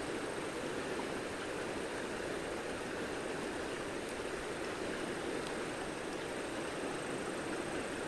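Steady rushing of a fast-flowing river's current, an even wash of water noise with no distinct splashes.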